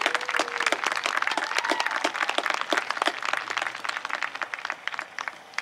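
Crowd applauding and cheering as a piece of band music ends: many hands clapping, with a couple of shouts in the first two seconds. The clapping thins out near the end.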